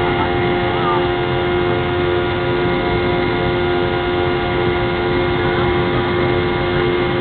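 Cabin noise inside a Boeing 717 climbing out after takeoff: the steady drone of its two rear-mounted Rolls-Royce BR715 turbofans and rushing airflow, with several constant whining tones over the hiss.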